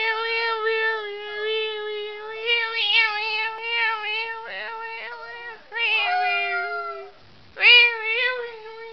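Small dog howling: one long, wavering cry that breaks off near the end and starts again with a second howl.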